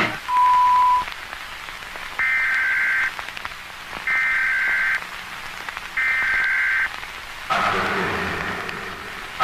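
Emergency alert tones: a short steady beep, then three roughly one-second bursts of the screeching two-pitch digital data tones of an EAS header. Near the end a hissing noise starts and slowly fades.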